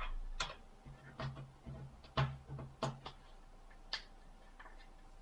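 Quiet, sharp plastic clicks and snaps from the housing of a Samsung B2100 phone being handled and pried at with a plastic opening tool: about eight separate clicks over the first four seconds, with a low handling rumble under the middle ones.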